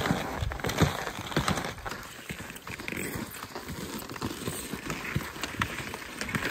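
Ski tourers skinning uphill on snow: an uneven run of crunches and clicks from skis, boots and poles, busier and louder in the first two seconds.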